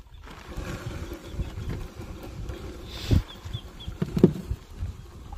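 Gill net and rope being hauled by hand over the side of a wooden boat, with wind buffeting the microphone. Two knocks come about three and four seconds in, and three faint high chirps fall between them.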